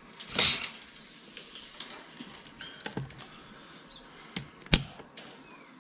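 Handling noises from a steel tape measure being worked against an aluminium roof-rail bracket. A brief swish comes about half a second in, then a few small clicks and one sharp click near the end.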